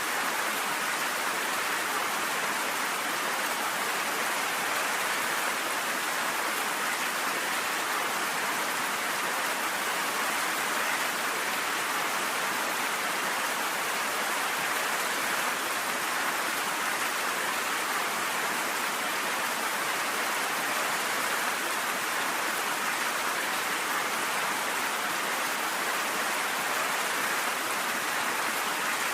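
Steady rain falling, an even hiss that holds constant throughout with no thunder.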